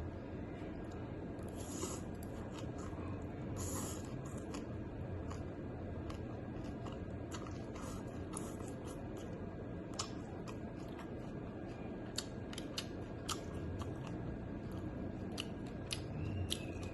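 A person eating bok mi close to the microphone: chewing with crisp crunches and scattered sharp clicks, over a steady low background hum.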